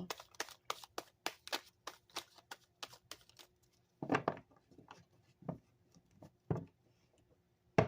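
Tarot cards being handled: a quick run of light clicks and snaps for about three and a half seconds, then four sharper taps about a second apart as cards are set down on the table.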